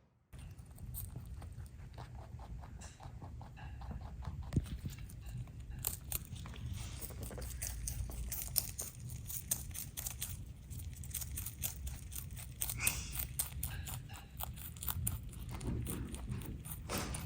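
Rabbits munching fresh greens: a fast, continuous run of small crisp crunching bites and tearing of leaves, over a low rumble. It starts abruptly just after the beginning.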